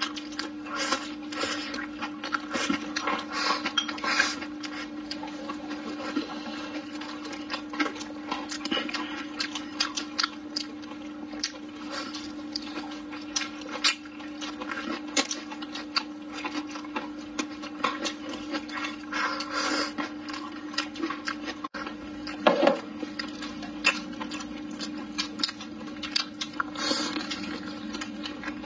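Close-up wet eating sounds of braised pork trotter and greens: chewing, sucking and lip-smacking, with many small irregular wet clicks. A steady low hum runs underneath.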